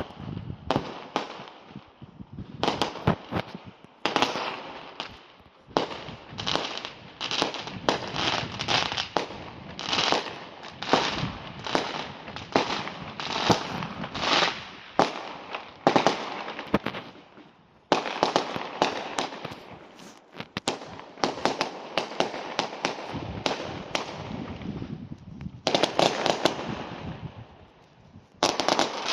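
Fireworks going off in a rapid series of sharp bangs and crackles, several a second at times, with a short lull just before the middle and a loud burst near the end.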